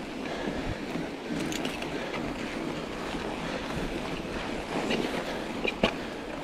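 Studded Schwalbe Ice Spike mountain-bike tyres rolling over packed snow, a steady rushing noise mixed with wind on the microphone. A single sharp knock near the end.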